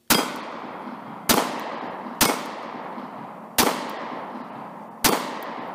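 Five pistol shots from a Sig P365, fired at an uneven pace roughly a second or so apart. Each is a sharp crack followed by a trailing echo that dies away before the next.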